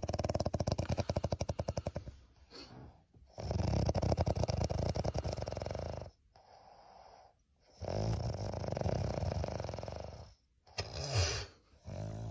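A man snoring in long rattling bouts, three of them with short pauses between, then a shorter snore near the end.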